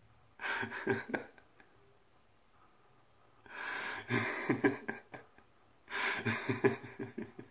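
A man laughing breathily in three bursts, each a quick run of pulsed breaths.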